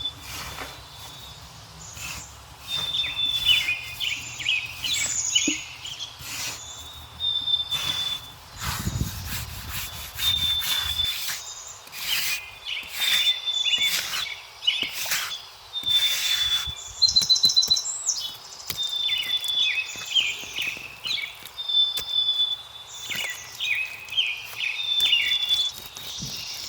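A songbird singing the same phrase over and over, every couple of seconds: a held high whistle followed by a quick run of falling notes. Short rustling or scraping noises come in between.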